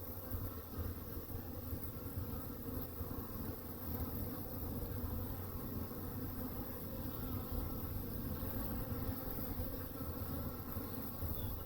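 Honeybees buzzing in a steady, continuous hum.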